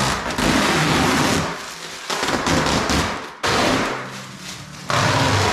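Thin plastic protective sheeting being peeled off a painted wall and bunched up by hand: loud crackling and rustling of the plastic in several bouts, with short lulls between them.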